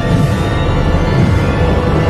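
Dramatic intro music with heavy bass.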